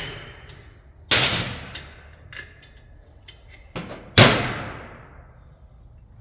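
Two sharp metallic clangs about three seconds apart, each ringing out for about a second, with a few lighter clinks of metal between them: steel tools or bolts knocking against metal during rear brake teardown.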